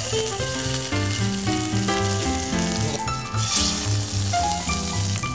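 Chunks of mackerel sizzling as they fry cut side down in an oiled pan, under background music with a steady bass beat.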